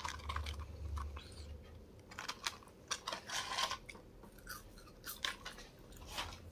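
Chewing McDonald's french fries close to the microphone, with irregular short mouth clicks and crunches.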